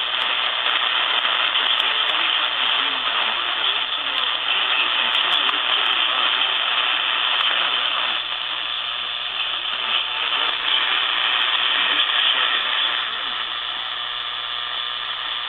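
Radio receiver playing a weak, static-heavy station: a steady hiss with a broadcast voice faintly buried under it, the sound cut off sharply above the radio's narrow audio range, over a low steady hum.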